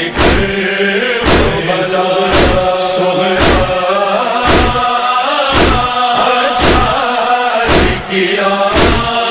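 Male chorus chanting the refrain of a Shia noha between verses, over steady matam chest-beating thumps about two a second.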